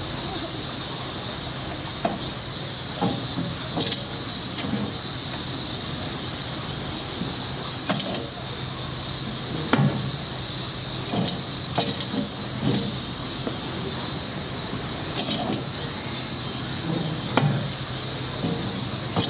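Irregular knocks and clunks from a Hokkaido brown bear pawing and rolling a chained steel ball feeder on gravel to get treats out of it, loudest twice partway through. A steady high hiss runs underneath.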